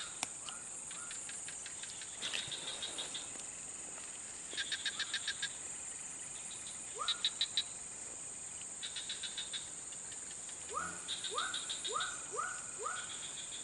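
Swamp wildlife: a steady high insect buzz, with short trains of rapid pulsed calls, about eight pulses a second, every second or two. One quick rising chirp comes about halfway through and a run of five near the end.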